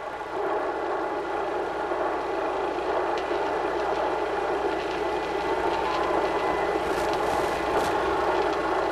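Steady helicopter engine and rotor noise, as picked up by the news helicopter's own camera microphone, with a thin steady whine above it.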